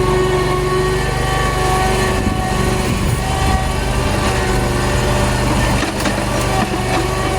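Farm machinery engine running steadily, with a steady whine over the low engine sound.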